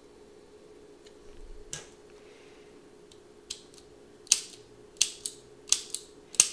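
Automatic petrol lighter being struck again and again by its thumb lever: sharp metallic clicks and snaps, about seven in three seconds, starting about halfway through, as the lid flips and the striker wheel scrapes the flint. It is sparking pretty well with its new flint spring.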